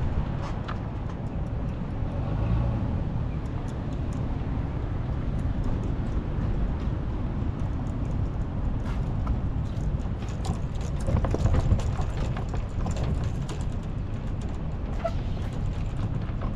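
A micro skiff on its trailer being backed down a concrete boat ramp into the water: a steady low rumble from the rolling trailer and tow vehicle, with scattered light clicks and rattles.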